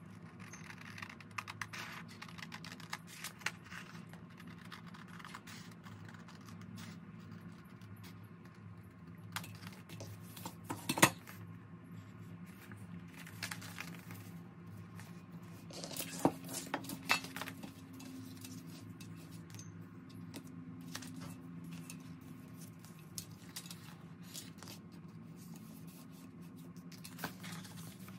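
Scissors snipping through a sheet of printed paper, with the paper rustling and small clicks as it is handled. One sharp knock about eleven seconds in, and a quick run of clicks a few seconds later, over a steady low hum.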